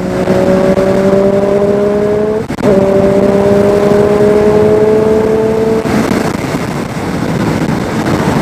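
Motorcycle engine pulling at road speed, its note slowly rising, with a brief break for a gear change about two and a half seconds in. About six seconds in the engine note drops away, leaving a steady rush of wind and road noise.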